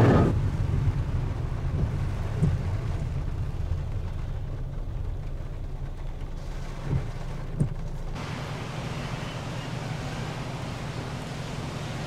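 A car driving in the rain, heard from inside: a steady low road rumble with a hiss of rain over it, and a few short thumps.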